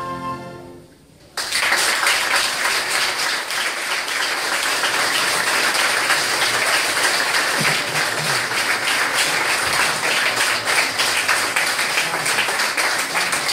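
An orchestra's final held chord fades out, and after a brief hush, about a second and a half in, the audience breaks into sustained applause.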